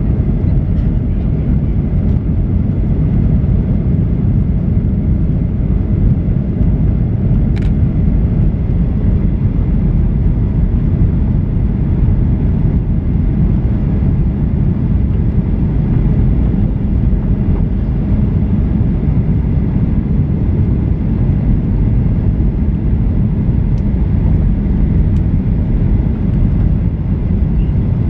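Steady low rumble of a Boeing 737-800 in flight, its CFM56 engines and airflow heard as one even noise, with a single brief click about seven and a half seconds in.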